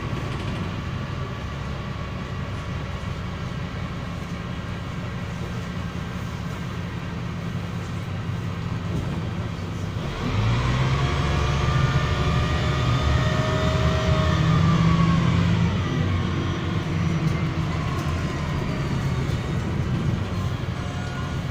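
MAZ-103 city bus running, heard from inside: a steady drone of engine and road noise. About halfway through the bus accelerates, and the engine and drivetrain grow louder with a whine that rises and then falls away as it eases off.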